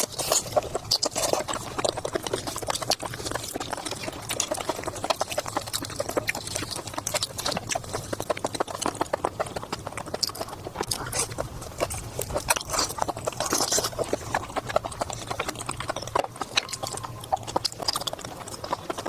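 Close-miked eating sounds: chewing with a dense, steady run of rapid wet mouth clicks.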